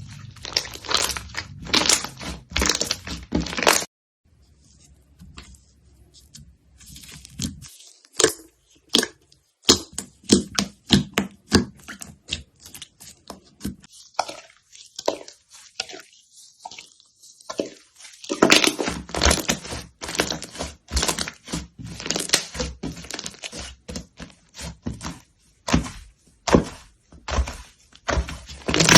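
Slime being pressed, squeezed and poked, giving rapid runs of crackling and popping clicks, with a short lull about four seconds in.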